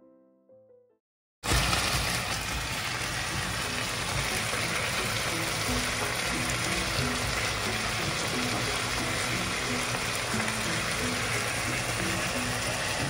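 The last soft electric-piano notes die away. About a second and a half in, sliced onions and chicken start frying in a pan with a steady, dense sizzle that holds to the end.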